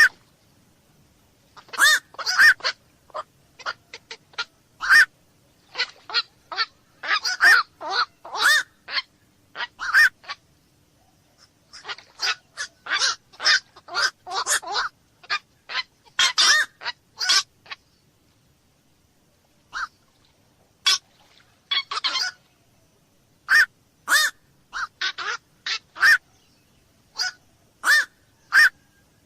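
Night heron calling: many short, clipped calls in irregular runs, with a quiet gap of about two seconds a little past the middle.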